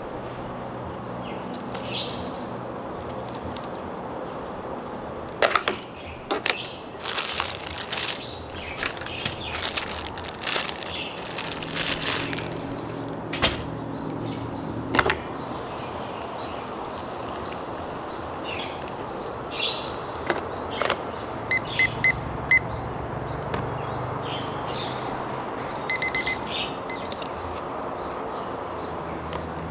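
Plastic packaging of an instant noodle cup crinkling and rustling as it is opened and the noodle block and lid are handled, loudest and densest in the middle of the stretch. Later come scattered clicks and a few short high chirps, over a steady outdoor background hum.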